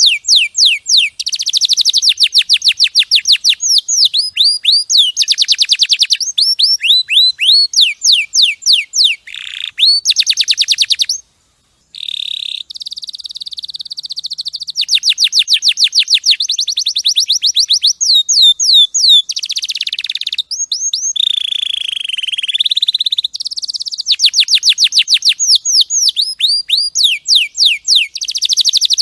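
Domestic canary singing: long runs of fast, repeated trills made of high downward-sweeping notes. The song breaks off briefly about eleven seconds in, and about two-thirds of the way through there is a held note that dips and rises.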